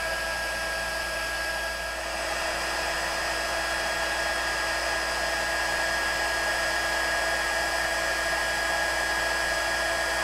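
Stampin' Up! heat tool for embossing running steadily, its fan blowing hot air with a constant hiss and a steady high whine while it melts silver embossing powder on card stock.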